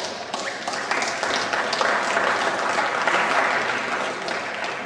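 Spectators in a hall applauding. The clapping swells about a second in and eases near the end.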